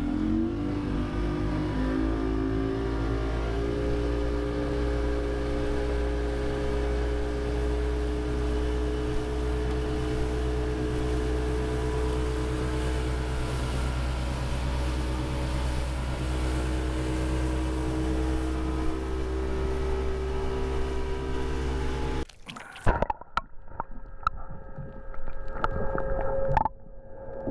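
Motorboat engine speeding up, its pitch rising over the first few seconds, then running steadily at cruising speed. About 22 seconds in it cuts off suddenly to muffled underwater sound with sharp clicks and knocks and a faint steady hum.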